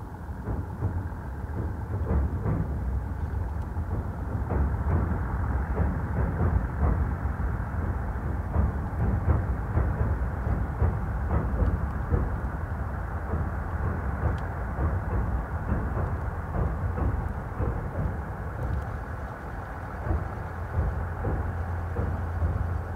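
Diesel railcar running across a railway bridge: a steady low drone with continual irregular clatter from the wheels.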